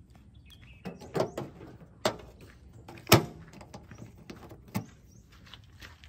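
Handling knocks and clacks from a tractor's fuel cap, metal filler flap and plastic jerrycan: a few separate sharp knocks and clicks, the loudest about three seconds in.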